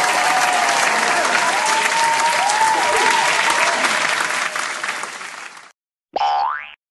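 Stock crowd applause sound effect: dense clapping with a few whistles, fading slightly and cutting off about five and a half seconds in. Near the end comes a short cartoon boing, a quick rising glide.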